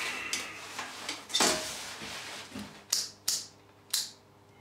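Handling rustle, then three sharp plastic switch clicks about a second apart, as the step-down transformer is switched on and the multimeter is set up.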